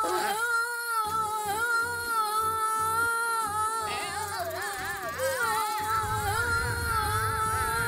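One long, held cartoon-character scream, altered by an audio effect so it sounds almost sung, its pitch steady with a slight waver. A low buzz joins underneath from about six seconds in.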